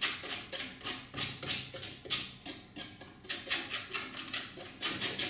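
Flexible palette knife rubbing oil paint onto a stretched cotton canvas in short, quick scraping strokes, about four a second.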